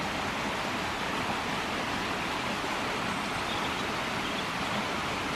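Stream water rushing steadily, an even unbroken hiss.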